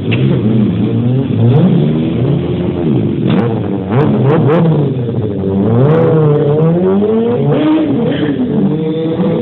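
Several sport motorcycle engines revving up and down while being ridden in wheelies, their pitches constantly rising and falling and overlapping one another.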